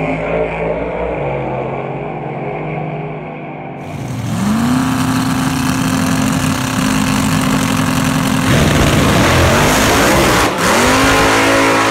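Drag-racing engines: an engine running steadily in the lanes, then about four seconds in a sharp rise in pitch as a car launches and holds high revs. A second rev-up comes near the end.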